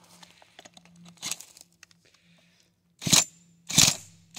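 Cordless drill spinning a Remington Rodeo chainsaw's engine through a socket set into the starter pulley, standing in for a broken pull starter: two short, loud bursts of cranking in the last second and a half, with a third starting at the very end, after some faint rustling.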